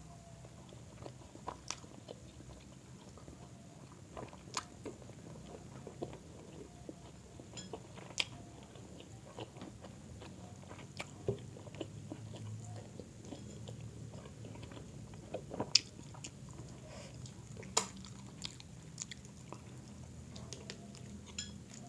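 Close-up chewing and wet mouth smacks of people eating grilled chicken inasal with their hands, short sharp clicks scattered throughout, a couple of them louder in the second half, over a low steady hum.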